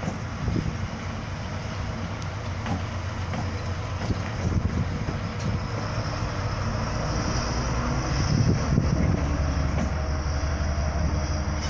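Class 70 diesel locomotive's 16-cylinder GE PowerHaul engine running as the locomotive moves slowly along the tracks, a steady low engine sound that swells louder about eight seconds in.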